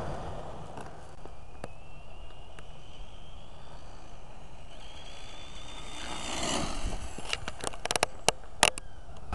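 An RC car's motor whining, the pitch rising as it speeds up, swelling into a brief rush about six and a half seconds in as it comes close, followed by several sharp clicks.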